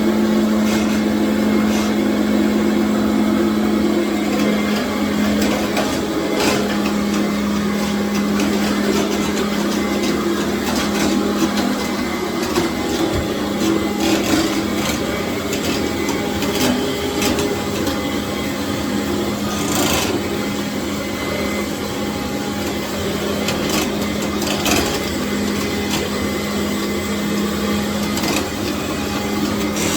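Commercial vacuum cleaner running over tile, a steady motor hum under a rasping, rubbing noise from the floor head, with scattered sharp clicks and ticks.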